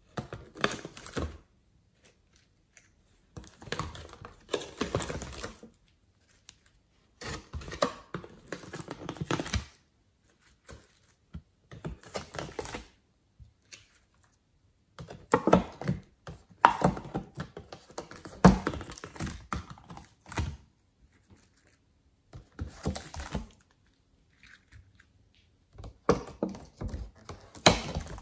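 Hands working sticky slime: shapes are peeled out of a plastic mould and pressed into a glass dish, giving dense crackles of small sticky clicks. The crackles come in separate bursts of one to five seconds, with silent gaps between.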